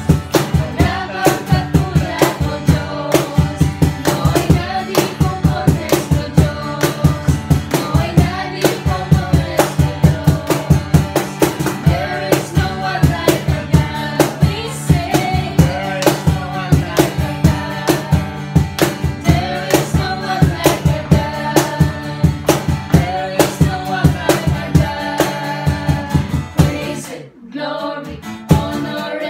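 A small group of mixed voices, mostly women, singing together to a strummed acoustic guitar, with hand claps on the beat. The music dips briefly near the end before picking up again.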